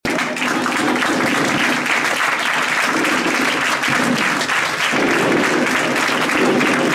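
Theatre audience applauding steadily, a dense mass of clapping from many hands.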